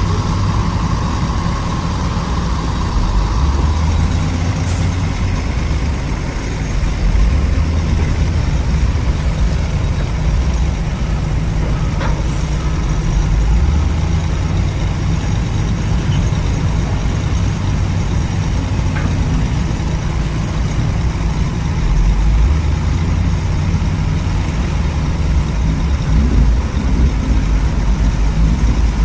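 Heavy diesel construction machinery running with a deep low rumble that swells and eases every few seconds as the engines take load.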